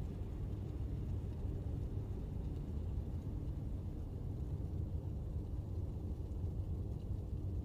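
A steady low rumble, even throughout, with no distinct sounds over it.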